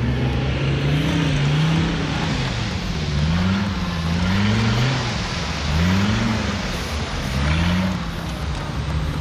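Off-road 4x4's engine revving up and down again and again, its pitch rising and falling about four times, with a rushing noise that swells along with each rise.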